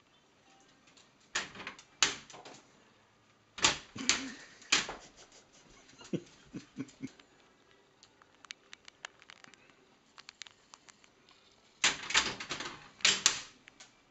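A dog flap clattering and knocking as a cocker spaniel jams a French loaf against it, in three loud spells, with lighter ticking of claws on a tiled floor in between.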